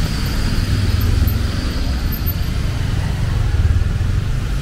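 Street motor traffic close by: vehicle engines giving a steady low rumble.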